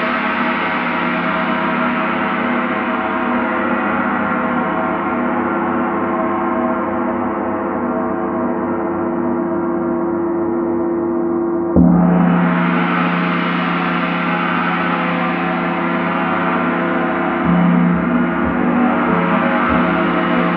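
Large Paiste gong ringing out with many overlapping tones and slowly fading, then struck again with a soft felt mallet a little over halfway through so the sound swells back up, with another lighter stroke a few seconds later.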